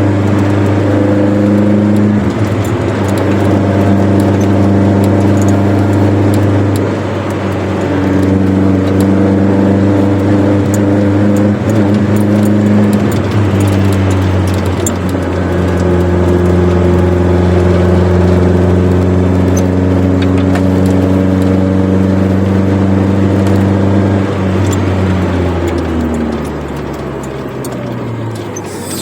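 Chevrolet Corsa Wind engine and sport exhaust running as the car is driven. The engine note holds steady, stepping up and down in pitch a few times, then falls in pitch and level near the end as the car slows.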